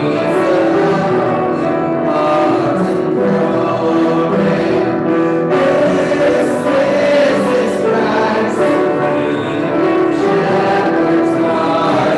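A hymn sung by several voices with piano accompaniment.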